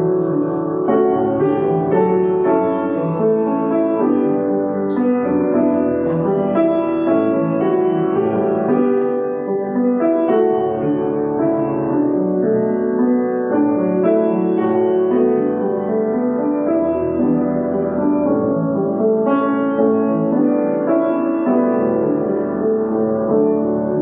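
Piano music played for a time of meditation before communion, held chords shifting every second or so.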